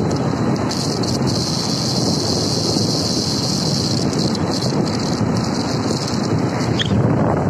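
Steady, loud rush of wind over the microphone on a moving vehicle, an even roar with no break.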